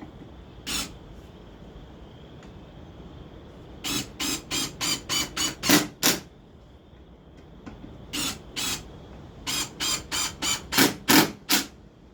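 Pneumatic brad nailer firing brad nails into wooden pickets: one shot about a second in, then two quick runs of shots at about three a second.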